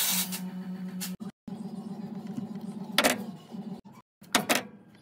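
Hands working electrical wires and male-female wire connectors: rustling with a few short, sharp clicks, the loudest about three seconds in and a quick cluster near the end, over a faint steady hum.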